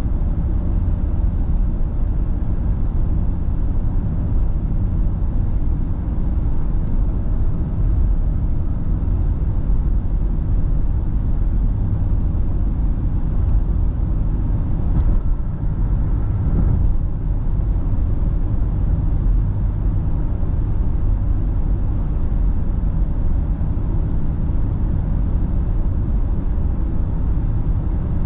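Steady low rumble of a vehicle cruising along a highway: engine and tyre road noise, with a few faint ticks about halfway through.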